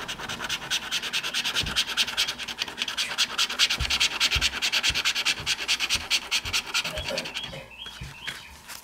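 Scratch-off lottery ticket being scratched: quick, rapid back-and-forth scratching strokes, several a second, that stop about a second before the end.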